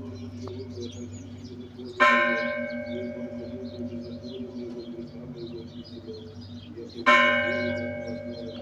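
Orthodox church bells ringing: one bell struck twice, about five seconds apart. Each stroke rings out with several overtones and fades slowly over the steady hum of a deeper bell.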